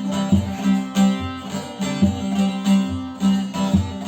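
A plucked string instrument strummed in a steady rhythm over a repeating low note: an instrumental break between the sung lines of a Turkish folk song.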